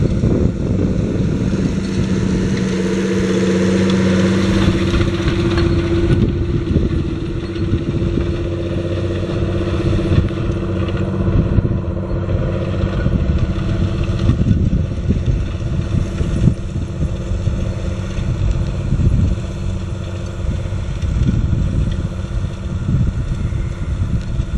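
Tractor engine running steadily under load as it pulls a Köckerling Rebell T600 classic disc harrow through stubble, with the rumble and clatter of the discs and roller working the soil. The engine's tone is strongest in the first few seconds and then grows weaker as the rig moves away.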